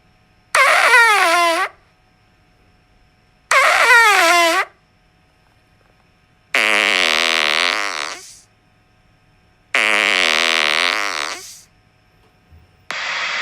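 Fart sounds played one after another with pauses between them. A short one with a wavering, falling pitch comes twice, then a longer, lower, wavering one comes twice, and another starts near the end.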